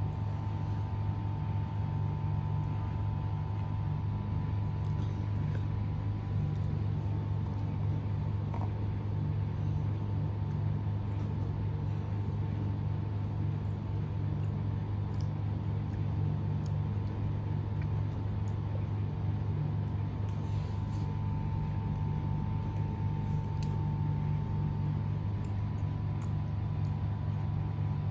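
A steady low mechanical hum with a thin steady whine above it, unchanging throughout, with a few faint ticks.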